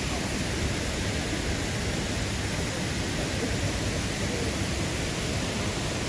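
Steady rush of falling water from the Kuang Si waterfall's cascades: an even hiss with a low rumble underneath, unchanging in level.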